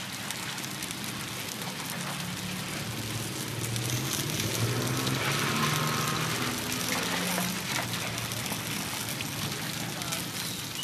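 Chive cakes frying in a shallow pan of hot oil: a steady sizzle with fine crackling. A low background hum rises in the middle and fades again.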